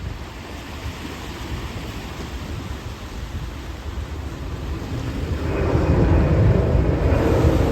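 Wind rumbling on the microphone, then a jet airliner's engines grow steadily louder from about five seconds in as it climbs out after take-off, with a low steady hum under the noise.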